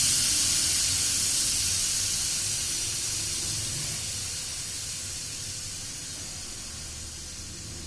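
Pressure cooker's steam being vented by hand, a strong high-pitched hiss that fades steadily as the remaining pressure drops.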